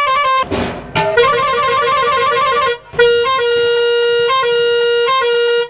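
Truck-mounted musical pressure horns played from a push-button panel, sounding a tune of bright steady notes. After a brief hiss comes a quick run of alternating notes, then a short break and one long held note with brief dips, cut off near the end.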